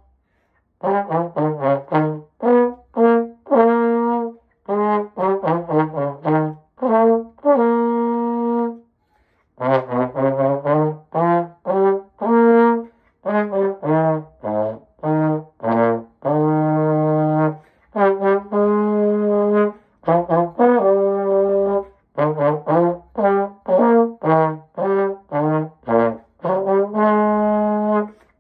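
Unaccompanied trombone playing a solo: phrases of quick, separately tongued notes alternating with longer held notes, with short pauses between phrases.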